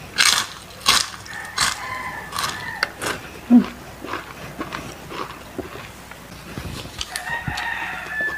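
Crispy fried chicken skin crunching loudly in the mouth: several sharp crunches in the first two seconds, then softer chewing. A rooster crows in the background twice, once about a second and a half in and again near the end.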